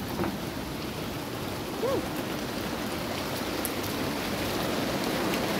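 Heavy rain pouring onto flooded pavement: a steady hiss of raindrops splashing into standing and running water. A brief wavering tone comes about two seconds in.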